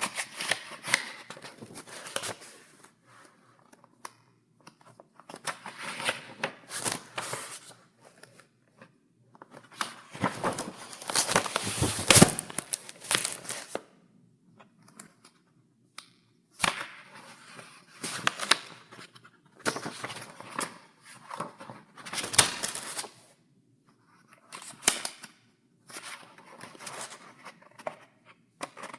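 Paper pages in a file being turned one after another: crisp rustling flips and snaps of paper, with short pauses between them and a longer, louder run of handling near the middle.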